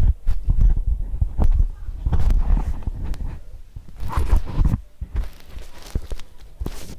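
Homemade slime being squeezed and stretched in the hands close to the microphone, giving irregular squelches and soft pops among many quick low thumps.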